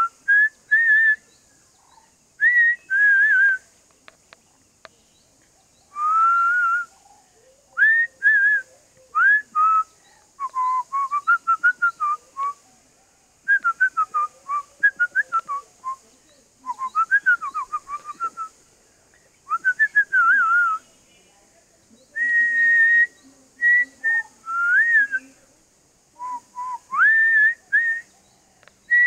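A person whistling: short whistled phrases with sliding pitch and quick runs of rapidly repeated notes, broken by short pauses.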